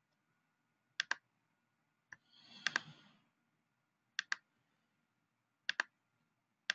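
Computer mouse clicks, each a quick press-and-release pair, four times at uneven intervals, with a short rustle and a couple of clicks about two and a half seconds in.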